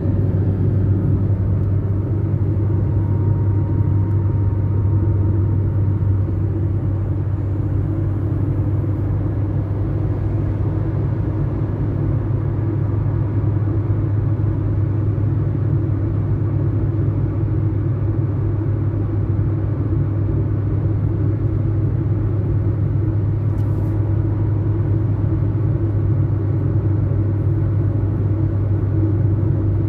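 A vehicle engine running with a steady low hum and rumble that does not change.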